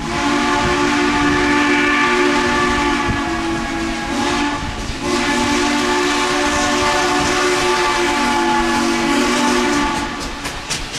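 The steam whistle of 2-8-2 Mikado locomotive No. 30, sounding a chord of several notes in two long blasts, the first about four and a half seconds and the second about five. As the second blast ends, a quick run of clicks from the passing train begins.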